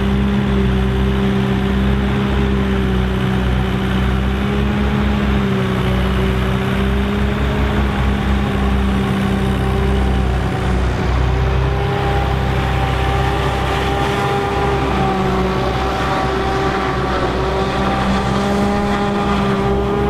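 Tractor diesel engines of a Ford 5000 and a BM-Volvo 430 working together with a PTO-driven one-row Pöttinger forage harvester chopping and blowing corn silage. The result is a loud, steady drone with a low hum. Higher whining tones come in about halfway through.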